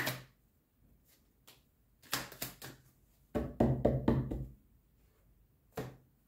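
A tarot deck handled in the hands: a couple of single knocks, then two short runs of quick clicking strokes as the cards are shuffled and tapped, and a last knock near the end.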